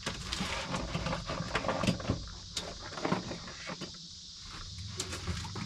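Light clicks and rustling of fishing tackle being handled while bumping rigs are tied, over a steady high-pitched hiss.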